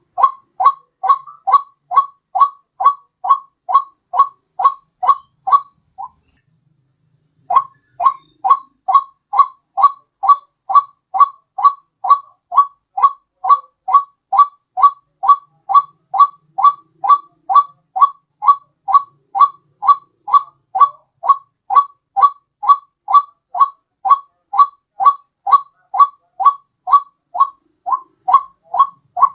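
White-breasted waterhen call played as a trapping lure: short, identical pitched notes repeated steadily at about two a second, breaking off for about a second and a half around six seconds in, then resuming.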